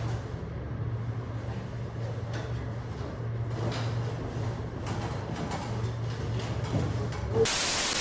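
Steady low hum with faint rustling as a cloth cover is pulled over a birdcage, then near the end a loud burst of static hiss from a glitch transition effect.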